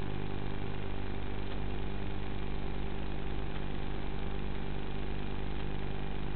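Onboard FPV audio of a TBS Caipirinha V2 flying wing in flight: a steady drone with many evenly spaced overtones. The pitch holds level throughout.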